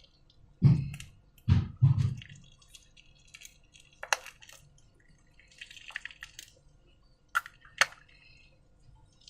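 Wet clear slime being handled: three soft, heavy plops early on, then scattered sharp wet clicks and faint crackling as the slime is squished.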